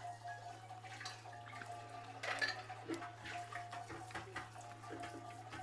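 Eating sounds at a plate: light clicks, scrapes and rustles as fried chicken is picked apart by hand over rice, with a louder cluster of clatter a little over two seconds in, over a steady low hum.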